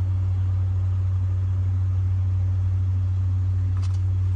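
A steady low-pitched mechanical hum, with a faint click near the end.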